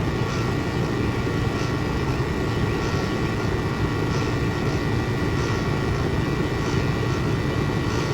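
Air-conditioning condensing unit running steadily, its compressor and condenser fan running together. The compressor has a noise the technician calls "very funky" and suspects is related to unstable refrigerant pressures.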